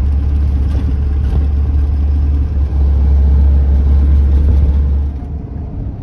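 Mercedes Vario expedition truck driving, its diesel engine and the road making a steady low drone from inside the cab. It turns quieter about five seconds in.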